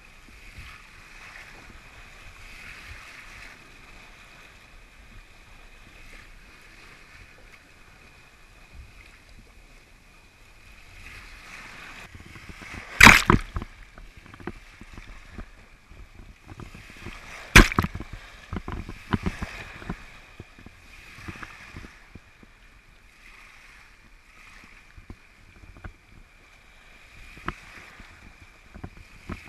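Water rushing and surging along a sailboat's hull as it drives through waves under sail, the noise swelling and easing with the seas. Twice, about four and a half seconds apart, a sharp loud slap of water hits the hull.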